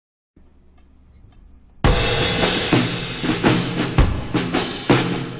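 Background music: a faint intro, then a full band with a drum kit comes in loudly just under two seconds in, beating about twice a second.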